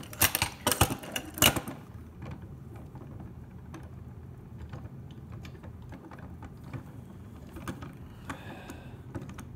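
Hands working a stuck screw out of a telescope's tube rings and handle: a quick run of sharp clicks and rattles in the first second and a half, then faint scattered ticks.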